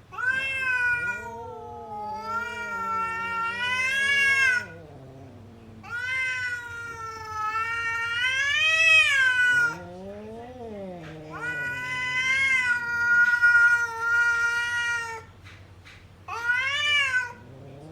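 Cat yowling: five long, drawn-out caterwauls that rise and fall in pitch, with a lower, shorter call about ten seconds in.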